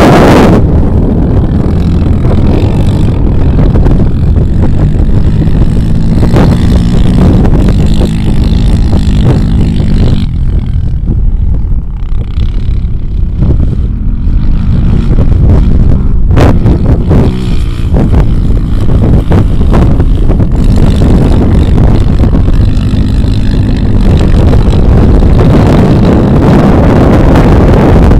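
Off-road vehicle engine running, mixed with loud, low wind buffeting on the microphone.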